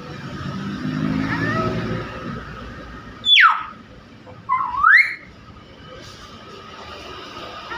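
Nias hill myna calling: a softer, lower call about a second in, then two loud whistles, one sliding steeply down about three seconds in and one sliding up a second later.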